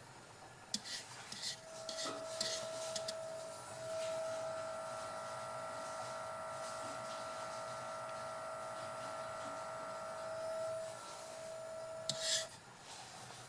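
HW ECM42 motor running with its propeller removed, giving a steady high whine that starts about a second and a half in and cuts off near the end, with a few clicks and knocks before it and a short rustle as it stops. The whine is the noise the motor makes at 50% power and above, and with no propeller fitted it does not come from the propeller.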